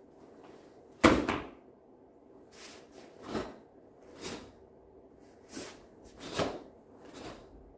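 Karate uniform snapping and swishing with each block and strike, about seven sharp swishes roughly a second apart. The loudest and sharpest comes about a second in.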